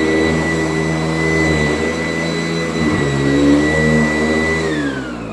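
Sanitaire S675 upright vacuum cleaner running with a steady high whine over its motor hum. Near the end it winds down, the whine falling in pitch as it slows.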